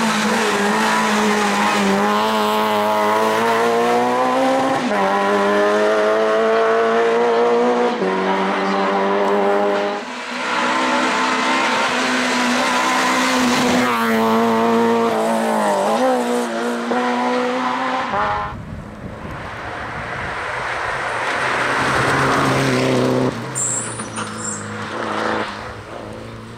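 Citroën C2 rally car's engine accelerating hard through the gears, its pitch climbing and dropping back sharply at each upshift, as the car passes and pulls away. The engine fades after about eighteen seconds, and another car's engine is heard coming up near the end.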